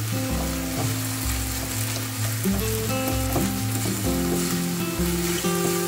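Minced chicken sizzling steadily in a frying pan while being stirred and broken up with a spoon or spatula.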